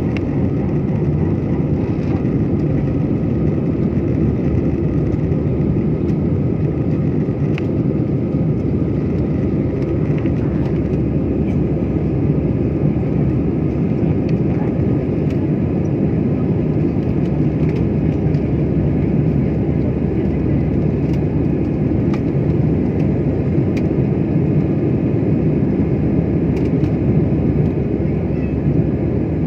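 Jet airliner cabin noise during the climb after takeoff: a steady, even roar of the engines and rushing air, with a faint steady whine above it.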